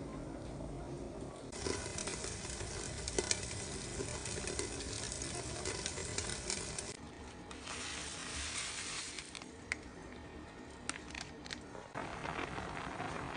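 Food sizzling as it fries in a pan. The sizzle starts about a second and a half in and dips briefly about seven seconds in. A few sharp clicks follow near the end, as of a utensil against the pan.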